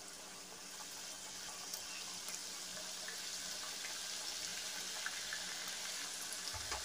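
A batch of cashew-shaped wheat-flour namak pare dough pieces deep-frying in well-heated oil in a kadhai: a steady sizzling hiss with small crackles that grows slightly louder as the batch settles in.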